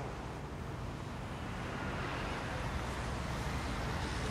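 Steady low rumble of distant traffic, growing slightly louder partway through.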